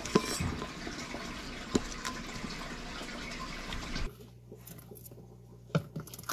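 A giant African bullfrog gulping down an insect: a few sharp clicks and snaps over a steady hiss. After about four seconds the hiss drops away, leaving a couple of fainter taps near the end.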